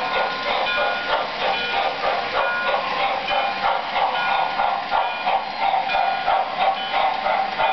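MTH O-scale model 4-4-2 Atlantic steam locomotive and passenger cars running on track: a steady rhythmic clatter of the wheels and the locomotive's electronic steam chuffing.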